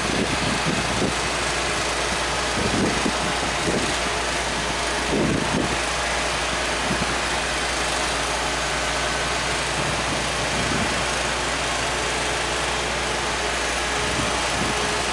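Wheeled excavator's diesel engine running steadily as it sets paving slabs with a vacuum lifter.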